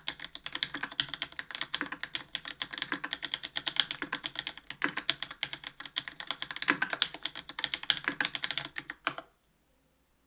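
Fast continuous typing on a mechanical keyboard with linear Cherry MX Black switches, an aluminium plate and GMK doubleshot ABS keycaps, many keystrokes a second with the spacebar's stabilizers thocking among them. The typing stops abruptly about nine seconds in.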